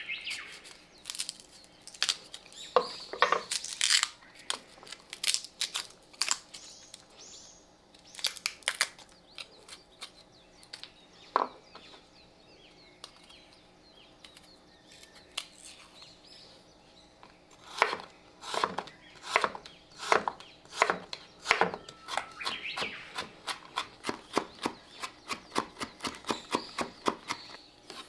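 Chef's knife cutting garlic cloves on a wooden cutting board: scattered knife taps and slicing as the cloves are peeled and cut. In the second half there is a steady run of knife strikes on the board, about two to three a second and quicker near the end, as the garlic is minced.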